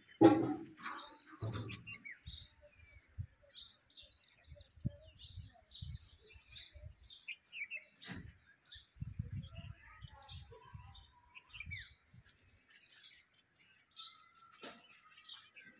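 Small birds chirping in short, repeated calls throughout. A brief loud low sound comes just after the start, with scattered soft low bumps later on.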